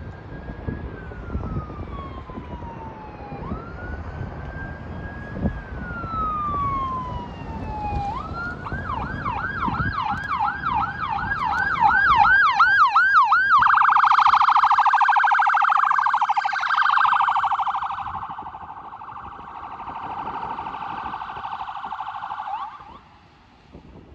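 Ambulance siren passing by: a slow rising and falling wail switches to a faster yelp about 8 seconds in, then to a rapid warble around 13 seconds. It is loudest midway, then fades and stops abruptly near the end.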